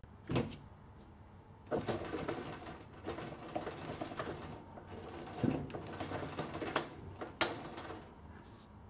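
Height-adjustment crank of a DeWalt DW734 benchtop thickness planer turned by hand, raising or lowering the cutterhead carriage: a mechanical rattle from the crank and lift gearing that runs for about six seconds after a click near the start. The crank handle is a newly fitted replacement being tried out.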